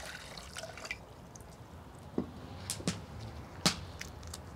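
Water trickling and dripping from a cup into a small pot of dried chiles, then four sharp clicks and crackles over the next two seconds as dried guajillo chiles are broken open by hand, the last one the loudest.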